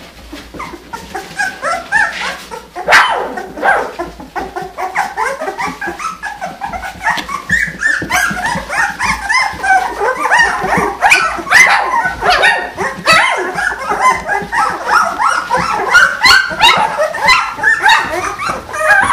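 A litter of 16-day-old puppies whining and yelping together: many short, squeaky calls overlapping one another, picking up after the first couple of seconds and continuing busily.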